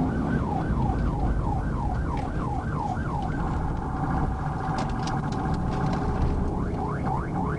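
Police car electronic siren in yelp mode, a fast rising and falling sweep about three times a second, heard from inside the pursuing patrol car. About three and a half seconds in it switches to a much faster warble, then goes back to the yelp near the end. Under it runs the car's engine and road noise at high speed.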